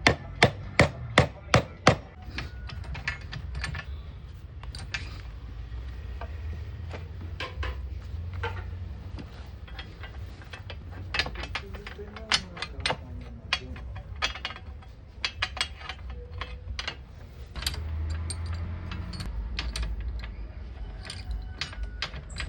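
Hammer blows on wood: a quick run of strikes, about three a second, in the first two seconds, then scattered knocks and taps, over a low steady hum.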